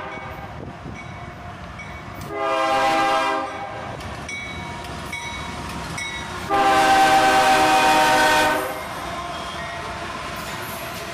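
Freight locomotive air horn sounding twice over the steady rumble of the approaching train: a short blast about two seconds in, then a longer, louder blast of about two seconds midway through.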